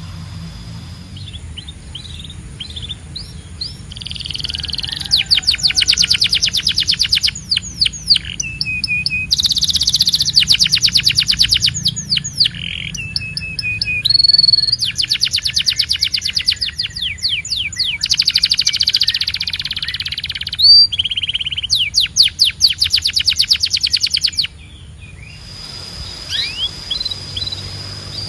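Canary singing a long rolling song of fast trills, each phrase a rapid run of repeated notes, with short breaks between phrases. Near the end it drops to a few scattered chirps.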